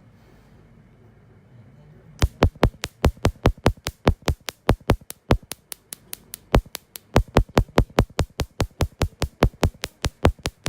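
A rapid, slightly uneven train of sharp clicks or snaps, about five a second, starting about two seconds in, with brief gaps.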